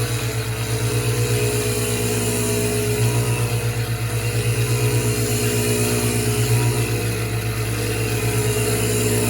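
Van Norman FG1000 flywheel grinder running, its stone grinding the clutch face of a cast-iron step flywheel on a light cleanup cut. A steady motor hum with a fast, even pulsing and a thin hiss over it.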